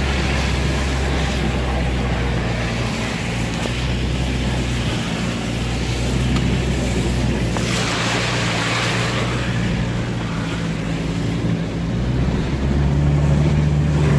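Car engine running under load while the tyres churn through mud and slush, heard from inside the cabin, with a steady low drone. About eight seconds in comes a louder rush of slush and mud spray against the car.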